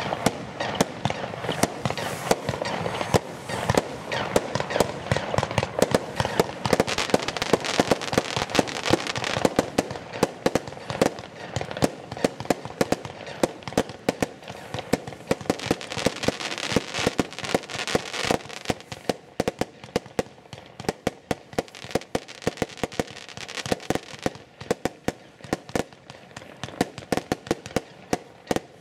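Jorge Tarantula category II firework going off: a dense, unbroken stream of crackling pops with louder bangs scattered among them, as its bursts of crackling stars break overhead.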